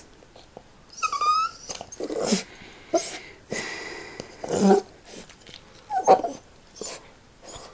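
American Bully puppy whining and grunting in protest while being held still for stitch removal from its cropped ears: a short high wavering whine about a second in, then several lower grunting cries.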